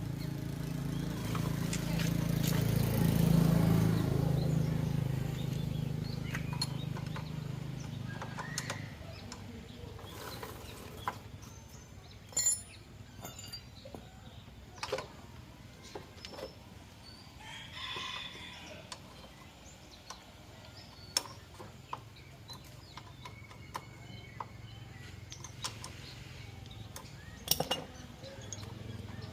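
A low hum swells and fades over the first eight seconds or so, followed by scattered clicks and knocks. About eighteen seconds in, a rooster crows once.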